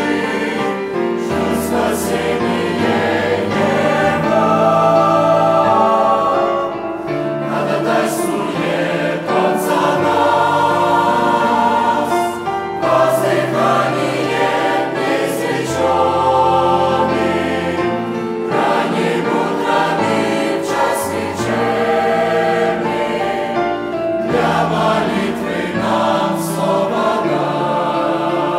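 Church choir singing a Russian-language hymn in parts, with sustained low notes underneath.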